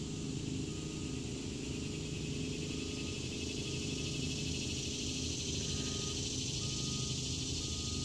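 Cicadas buzzing steadily in a continuous high drone, over a low steady hum.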